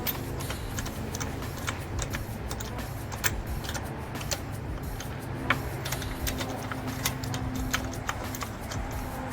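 Irregular sharp metallic clicks and clinks of hand tools and brake parts being handled during a brake pad change, a few to the second, over a steady low rumble.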